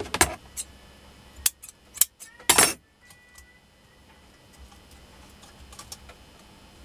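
Thin copper magnet-wire ends of an angle-grinder armature being handled and sorted by hand: a few sharp clicks and two short rustling scrapes in the first three seconds, then only faint ticks.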